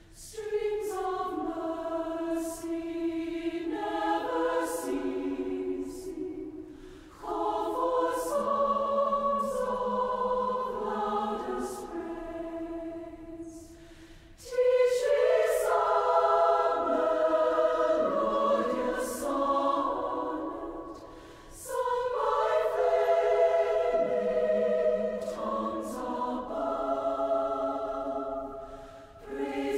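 A choir singing slow, held phrases, each about seven seconds long and set apart by a brief pause.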